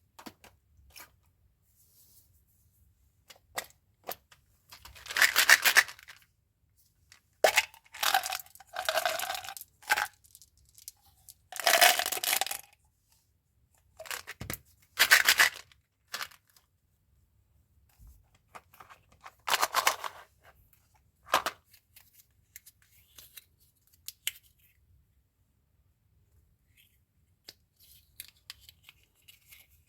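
Candy and gum packaging being torn open and handled: several short bursts of tearing, each a second or two long, with small clicks between, then only faint ticks for the last several seconds.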